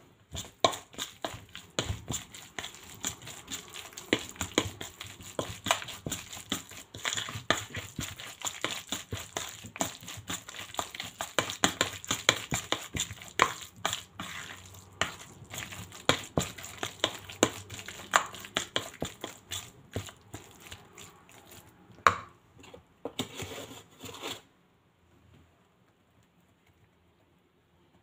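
Metal fork stirring grated zucchini and carrot with flour in a bowl: rapid, irregular clicks and scrapes of the fork against the bowl, with one sharper knock near the end, stopping a few seconds before the end.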